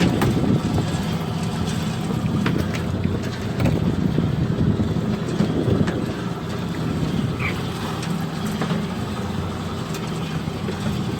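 Fishing boat's engine running steadily, with wind and sea noise and a few light clicks and knocks on deck.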